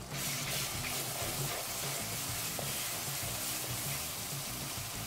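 Sliced onion and freshly added ginger-garlic paste sizzling in hot oil in a kadai, stirred and scraped with a wooden spoon. The sizzle is a steady hiss.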